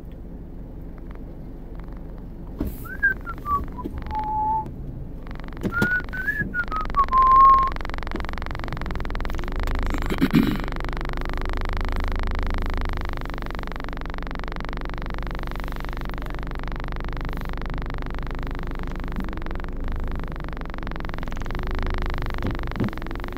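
A person whistling two short phrases a few seconds in, each sliding down in pitch and ending on a held note. After that only a steady hum inside the car cabin.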